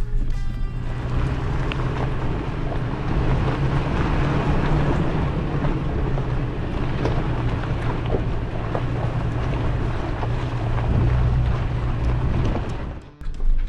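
Pickup truck engine running steadily at low speed while the truck crawls in four-low over a rocky trail, with tyres crunching over rocks and gravel and scattered small knocks and rattles. The sound briefly drops out near the end.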